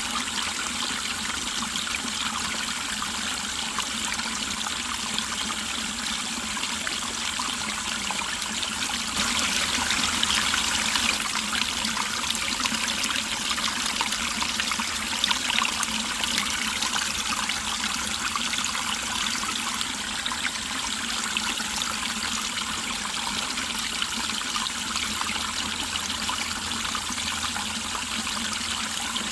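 Mountain stream flowing and trickling over rocks, a steady babble that swells a little for several seconds about a third of the way in.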